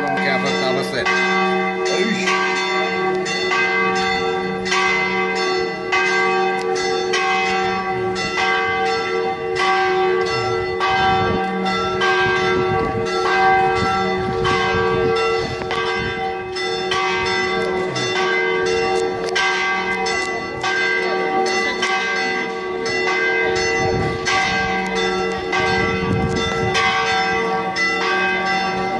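Church bells pealing: quick, even strokes about twice a second, with the ringing of the overlapping bells held between strokes.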